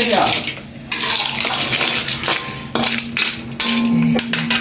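Metal spatula stirring small snails in their shells through sauce in a wok, scraping and clinking against the pan in repeated strokes that start about a second in.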